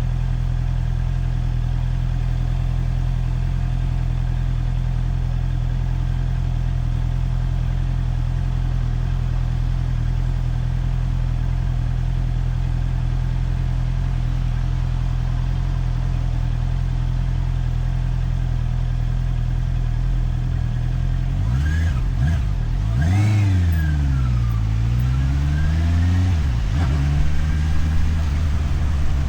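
Motorcycle engine running steadily at one engine speed for about twenty seconds. Near the end it revs up as the bike pulls away: the pitch rises, drops back at a gear change, and rises again.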